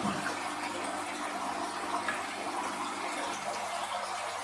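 Steady bubbling and churning of aquarium water from the air-driven airlift of an egg incubator, with the water stirred as a hand works the submerged incubator insert.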